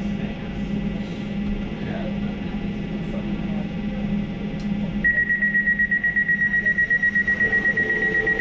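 Low steady hum of an Elizabeth line train standing at a station; about five seconds in, a rapid high-pitched beeping starts and keeps going: the door-closing warning.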